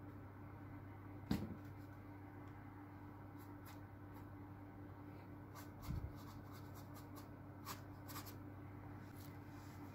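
Faint scratching and dabbing of a paintbrush working oil paint on canvas, over a steady low hum. A sharp tap comes about a second in, and a dull knock near the middle.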